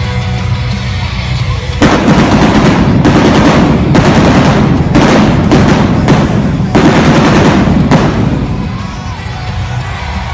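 Arena stage pyrotechnics going off in rapid, loud volleys of bangs for about six seconds over the show's opening music, then dying away near the end.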